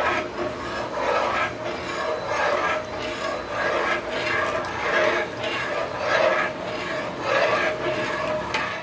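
A flat metal spatula scraping against an aluminium pressure pan as it stirs thick rice-and-carrot batter, in repeated strokes about two a second. The batter is stirred without stopping as it is poured in, so that it does not form lumps.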